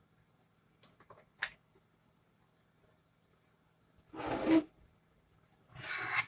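Workbench handling noises: a couple of light clicks about a second in, then two short scraping noises, each about half a second long, near the end.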